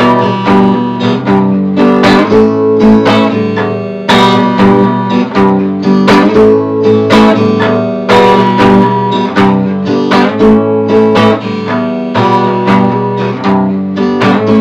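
Acoustic guitar strummed in a steady rhythmic pattern, cycling through the chords E minor, G and A, with the phrase repeating about every four seconds.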